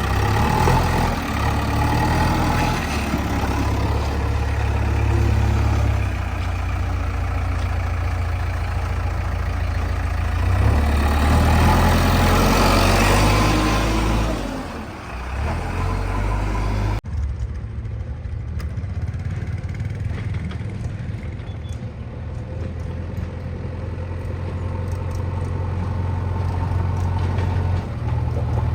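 Diesel engines of a JCB 3DX backhoe loader and tractors running, a steady low engine drone throughout. The sound changes abruptly a little over halfway through and becomes duller, with less hiss above.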